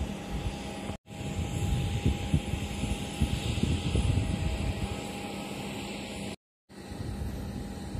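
Jet aircraft engine noise with a steady hum under it. The low rumble swells louder in the middle, and the sound cuts out briefly twice.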